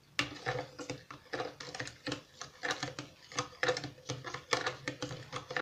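Spoon stirring buttermilk in a plastic bowl, clicking and scraping against the bowl in a quick, irregular rhythm of several strokes a second, dissolving sugar into it.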